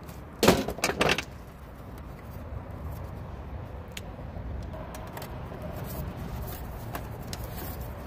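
A few sharp metal clatters about half a second in, then faint scrapes and light clicks as the sheet-metal cover of a window air conditioner's control box is handled and lifted off to reach the run capacitor.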